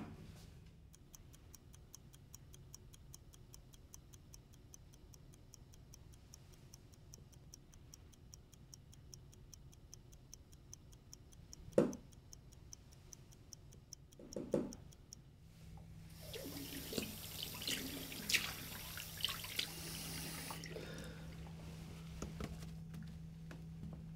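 Wall clock ticking steadily, with a sharp knock about halfway through as the clock is handled, and a second knock shortly after; the ticking then stops. A tap then runs into a sink for about five seconds over a steady low hum.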